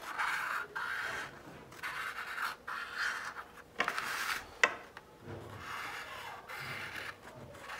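Black permanent marker drawing on a paper plate: the felt tip scratches over the paper in a series of short strokes, with a sharp tick a little past halfway.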